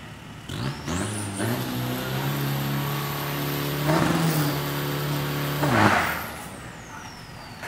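Isuzu pickup's diesel engine revved up at the drag strip start line and held at high revs with a high whistle rising alongside, then a loud burst as it launches. After that the engine sound drops away and the whistle falls slowly in pitch.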